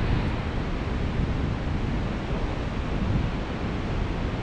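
Steady rush of the fast-flowing Baker River, mixed with wind noise on the microphone.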